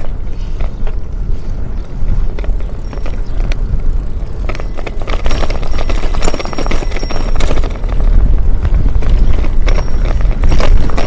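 Wind buffeting the microphone of a moving bicycle camera: a heavy, steady low rumble that grows louder about eight seconds in. Scattered clicks and a short cluster of rattles come in the middle.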